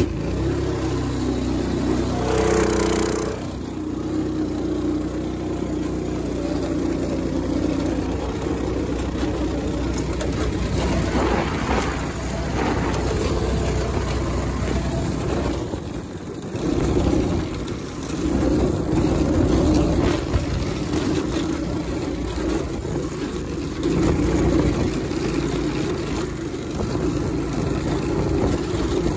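Go-kart engine running under throttle as the kart is driven over rough grass, the engine note rising and falling. About sixteen seconds in it eases off briefly, then picks up again.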